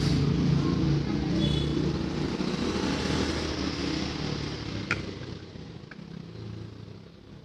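A motor vehicle's engine running, growing steadily fainter, with a sharp click about five seconds in.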